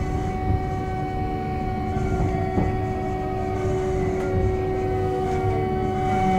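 DT4 U-Bahn metro train heard from inside the car, its wheels and motors running as it slows into a station, with a steady whine over the rumble.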